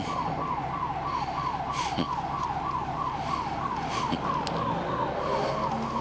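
Electronic security alarm siren sounding continuously, a fast repeating downward-sweeping wail of about four sweeps a second.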